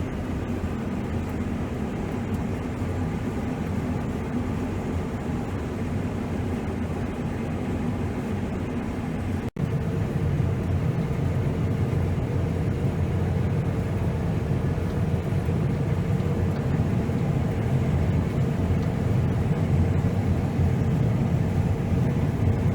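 Diesel engine of heavy harvest machinery running steadily. It drops out for an instant about nine and a half seconds in, then carries on a little louder with a steady hum.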